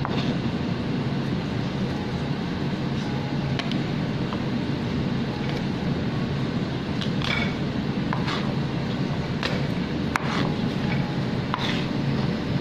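A chef's knife tapping and clicking on a plastic cutting board a handful of times at irregular moments as garlic cloves are crushed and cut, over a steady low background hum.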